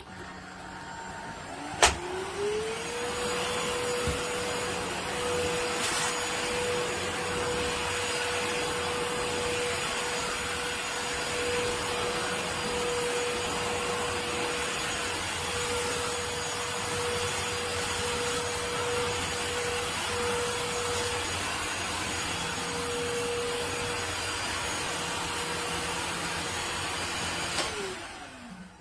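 Kenmore 16-volt cordless stick vacuum switched on with a click about two seconds in, its motor whine rising quickly to a steady high pitch over a rush of air. It runs evenly, then winds down and clicks off near the end.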